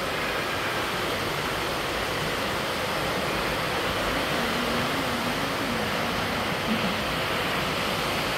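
Steady rushing background noise, with a faint voice speaking briefly about halfway through.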